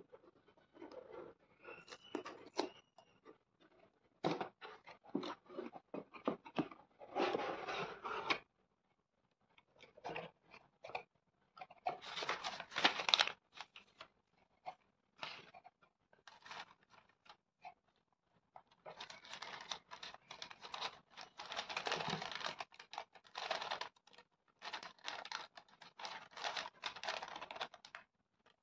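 Cardboard mailer box being opened, then tissue paper and bubble wrap rustling and crinkling as hands unwrap the contents. It comes in irregular bursts with light clicks, broken by two pauses of a second or two.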